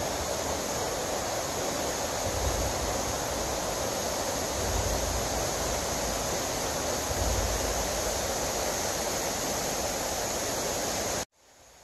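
Steady rushing noise with low rumbles swelling about every two and a half seconds; it cuts off abruptly near the end, leaving a much quieter hush.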